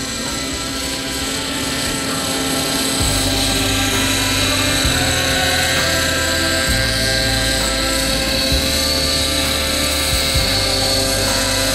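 Nitro RC helicopter's OS 55HZ two-stroke glow engine running under flight load with rotor blade noise, a steady high whine.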